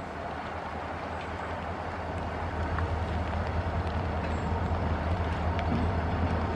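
Diesel locomotives of a CN freight train rumbling as they approach up the grade, a steady low drone that grows gradually louder.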